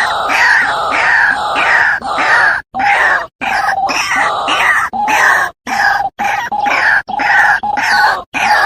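White-breasted waterhen calling: a loud, harsh, repeated 'ruak-ruak' croak at about two notes a second, broken several times by short dead-silent gaps.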